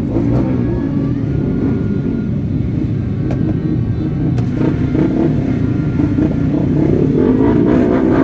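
Many motorbike engines running in dense street traffic, a steady loud rumble, with music playing over it.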